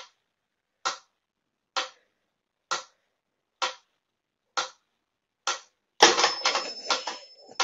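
Mechanical pyramid metronome ticking steadily, seven sharp ticks a little under a second apart. About six seconds in, the ticking gives way to a burst of scuffling clatter as a cat swats at the metronome.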